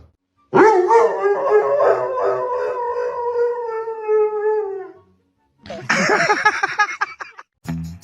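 A dog howling: one long howl of about four seconds that sinks a little in pitch as it ends, then a shorter, rougher howl. Music starts right at the end.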